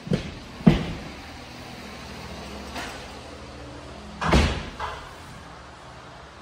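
Several sharp knocks and thuds ringing through an empty, hard-walled interior, the loudest just under a second in and another, longer one around four and a half seconds in, over a steady low hum.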